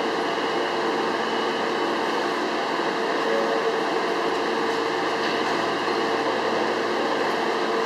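Steady hum and hiss of an Alstom R160A-2 subway train standing in the station, its ventilation and onboard equipment running with a steady mid-pitched drone.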